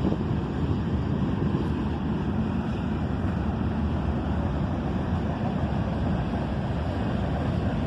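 Norfolk Southern freight train rolling past as it accelerates toward track speed: a steady, unbroken rumble.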